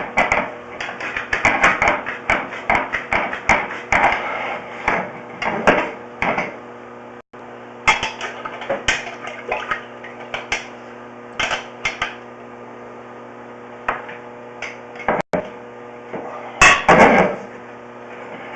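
Irregular knocking and clattering as a sewer inspection camera's push cable is shoved into a drain line and the camera head bumps against corrosion and sludge buildup it cannot get past. A steady electrical hum runs underneath.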